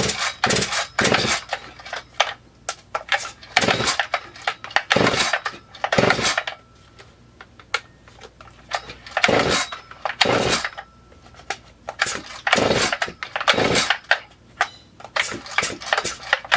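A newly built Stihl MS440 clone chainsaw being pull-started repeatedly on choke, with its decompression valve pressed. Each pull of the starter cord turns the engine over in a short rasping burst, about a dozen pulls in irregular groups. The engine does not catch and run.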